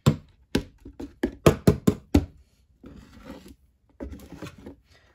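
Metal wire whisk clacking against the sides of a plastic bowl, about eight quick knocks in the first two seconds, then softer swishing as it beats a foamy soap-and-water mixture to dissolve the soap.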